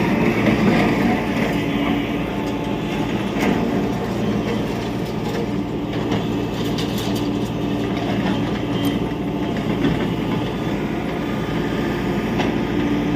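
Tata Hitachi EX70 Super Plus excavator's diesel engine running steadily under load, with scattered sharp knocks and clatter of demolition work.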